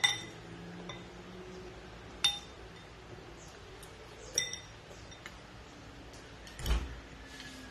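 Spoons clinking against a glass bowl: three sharp clinks with a brief ringing tone, about two seconds apart, with lighter taps between them. Near the end comes a dull thump.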